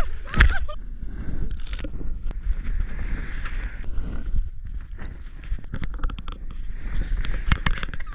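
Plastic sled scraping and hissing over packed snow, with a steady wind rumble on the microphone; a laughing shout near the start.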